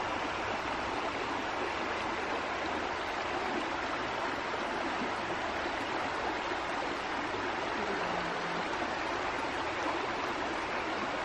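Shallow rocky mountain creek rushing steadily over stones.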